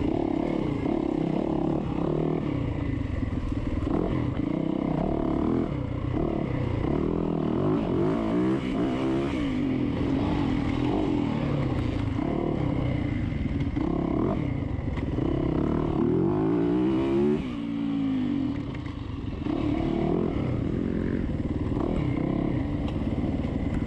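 Yamaha dirt bike engine under racing throttle, revving up and down as the rider works through the gears. About seventeen seconds in the throttle shuts briefly and the revs fall away before it picks up again.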